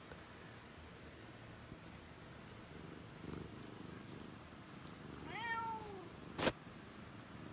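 A domestic cat gives one drawn-out meow about five seconds in, rising a little and then falling in pitch. It is followed shortly after by a single sharp tap.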